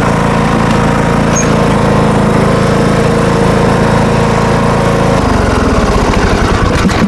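John Deere D105 riding lawn tractor's engine running steadily at high throttle, then dropping to a lower, slower-pulsing idle about five seconds in as it is throttled down.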